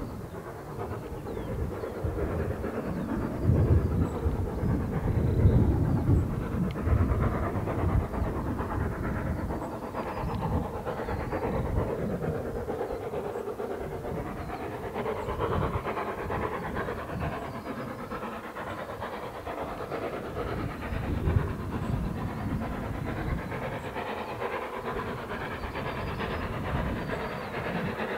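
Steam locomotive working a train out of sight, its exhaust beats chuffing rhythmically with a hiss of steam; the engine is LSWR S15 4-6-0 No. 506, a two-cylinder engine.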